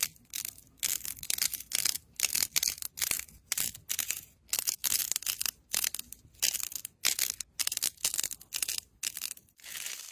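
Crumbly clay-like coating being pressed off balls and squeezed in the fingers, crunching in short crisp bursts about twice a second.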